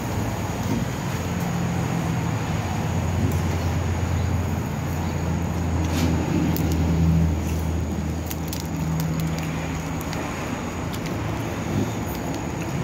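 Motor vehicle engine running low and steady over road traffic noise, growing louder toward the middle and fading after about ten seconds.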